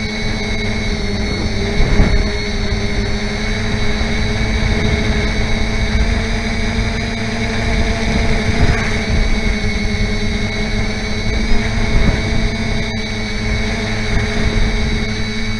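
Small quadcopter's electric motors giving a steady, multi-tone whine, with wind buffeting the onboard camera's microphone.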